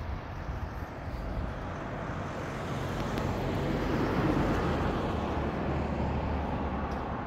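A passing vehicle: a rush of noise that swells to a peak about four seconds in and then fades, over a steady low rumble.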